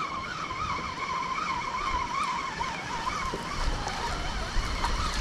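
Fishing reel whining as line is wound in, a wavering high whine that rises and falls two or three times a second with the turns of the handle and fades out about three seconds in.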